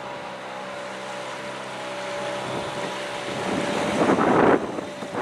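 Small outboard motor on an inflatable dinghy running steadily as the boat passes close by, growing louder. A brief louder rush of noise comes about four seconds in.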